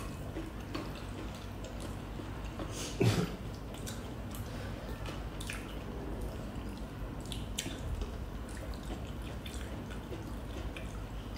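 Eating sounds at a table: soft wet mouth and chewing sounds and scattered small clicks of a spoon against a bowl, over a low steady hum. One louder short sound comes about three seconds in.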